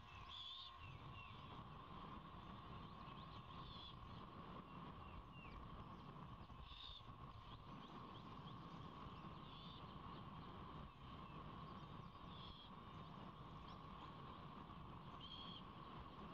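Faint, short raspy screech of a great horned owlet, repeated about every three seconds, over faint distant birdsong and a steady drone.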